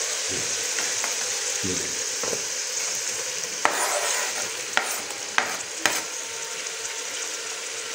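Onions and spices frying in hot oil in a metal karahi, a steady sizzle. About halfway through, four sharp clicks and knocks come as chopped tomatoes are scraped off a wooden cutting board into the pan with a spatula.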